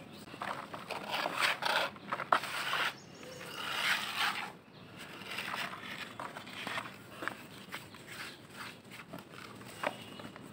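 Hands crumbling dry clods of earth over a plastic bucket: a dry crunching and rustling as lumps break apart and the powder pours back down, busiest in the first half, then lighter crumbling with scattered sharp crackles.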